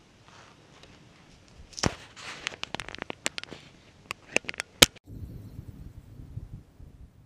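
Close handling noise: a quick, irregular run of sharp clicks and knocks as fingers grip and fumble the action camera, the loudest one near the end. After an abrupt change it gives way to a low, uneven rumble.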